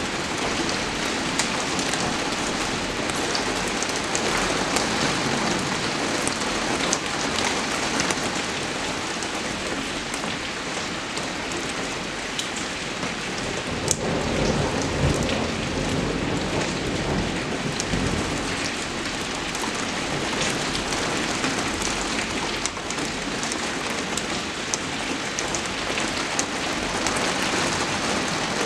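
Steady rain falling on a hard surface, an even hiss dotted with the sharp ticks of single drops. About halfway through, a low rumble swells for a few seconds.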